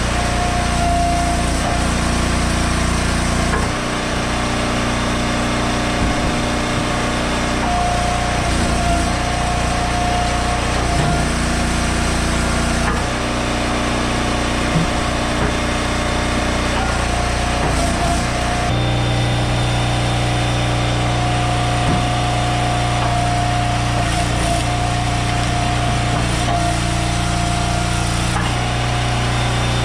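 Small gasoline engine of an Eastonmade Ultra log splitter running steadily, its note changing a few times as the hydraulic ram works through firewood rounds.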